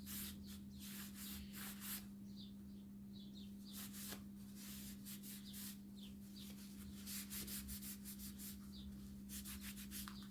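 A cloth rubbing oil finish onto walnut wood in many quick, faint wiping strokes, over a steady low hum.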